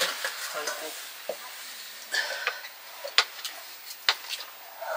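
Food sizzling in a cooking pot while it is stirred, with the spoon knocking sharply against the pot four times.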